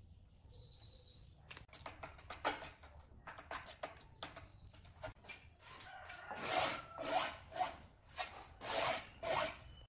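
Hand scraper spreading and smoothing thick stone adhesive over a granite slab: repeated scraping strokes, becoming louder and more regular about halfway through, at roughly two strokes a second.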